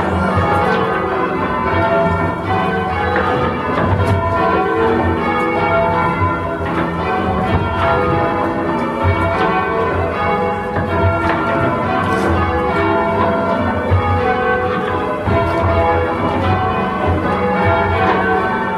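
A ring of five church bells, cast by Taylor in 1854 with the tenor in E, being rung full circle by hand. The strokes follow one another in a steady, unbroken rhythm.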